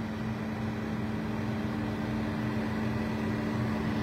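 Steady mechanical hum of a running motor: two even tones over a low, wavering throb.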